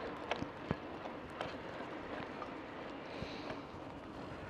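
Simplon Silk Carbon TQ e-bike rolling along a paved path: steady tyre and wind noise, with a handful of sharp clicks and knocks from bumps in the surface.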